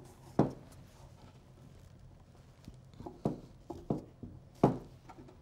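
Sharp knocks and clicks of plastic spring clamps being set and adjusted on a wooden drawer front to hold a glued patch: one loud knock about half a second in, a few lighter taps a little past halfway, and another loud knock near the end.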